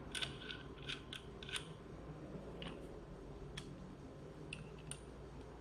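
Light metallic clicks and taps from handling the steel nosepiece and mandrel of a hand rivet nut tool: a quick cluster in the first second and a half, then a few single clicks spread through the rest.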